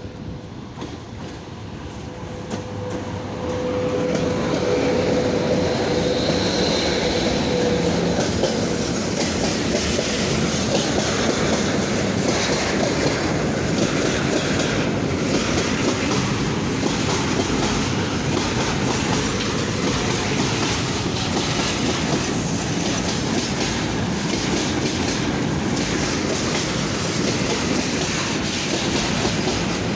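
A freight train of tank wagons hauled by a VL80T electric locomotive approaches and rolls past close by, growing louder over the first few seconds, then a steady rumble with the wheels clicking over the rail joints. A steady high tone sounds for roughly the first eight seconds as the locomotive comes up.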